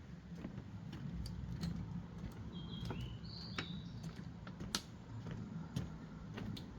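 A wild bird gives a few short, high, steady whistled notes around the middle, over scattered sharp clicks and a low rumble from someone walking.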